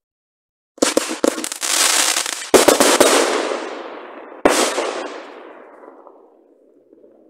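Aerial fireworks bursting overhead. Sharp bangs come about a second in, a loud one at about two and a half seconds and another at about four and a half, and each trails off in a long, fading hiss.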